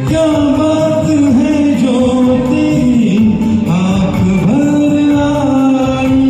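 A singer performing a Bollywood film song over an instrumental backing track, holding notes and sliding between them.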